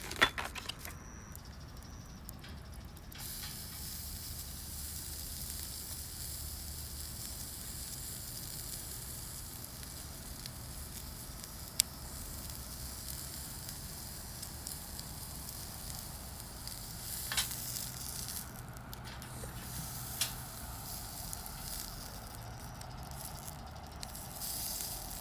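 Steak sizzling as it is seared again over a wood fire, a steady hiss that sets in about three seconds in, with one sharp pop near the middle and a few softer knocks later.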